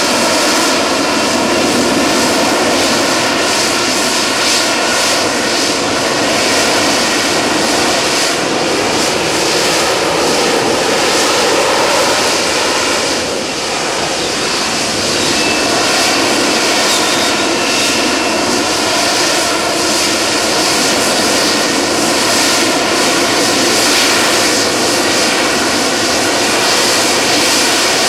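Sea Harrier FA2's Rolls-Royce Pegasus vectored-thrust turbofan running loud and continuously: a heavy jet rush with a steady whine over it, easing slightly about halfway through.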